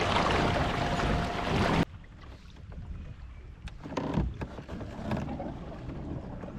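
Motorized fishing kayak underway: wind and water rushing past with a thin steady whine, cut off abruptly about two seconds in. After that, quieter water and wind with a few light knocks and clicks around the kayak.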